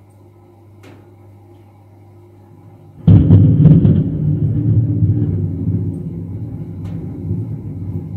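Thunderclap: a sudden crackling crack about three seconds in, then a loud low rolling rumble that slowly fades.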